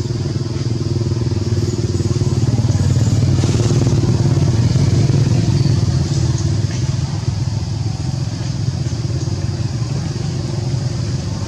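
A small engine running steadily close by, with a low, even drone that hardly changes.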